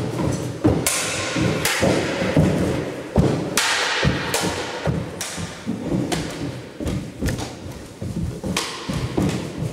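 Irregular thuds and knocks of practice weapons (training tulwar, stick) striking a round shield and a padded shield during freestyle sparring, mixed with feet stamping on a wooden plank floor. Several hits a second, a few of them sharper and brighter.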